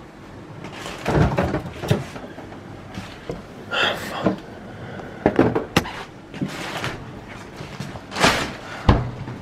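Kitchen cupboard and doors being opened and shut, with a series of knocks and clatters from things being handled. The sharpest knock comes near the end.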